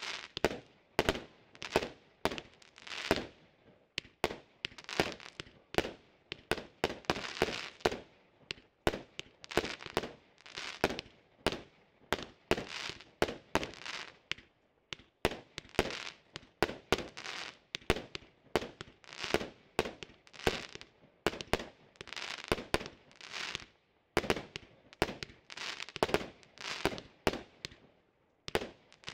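Triplex TXB705 'Pyro Story' 100-shot, 20 mm fireworks cake firing a steady run of shots, about two a second, each a sharp pop. Many are followed by a second or so of crackling fizz from glittering stars.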